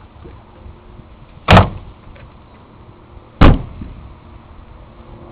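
Two loud, heavy thumps about two seconds apart, each dying away quickly.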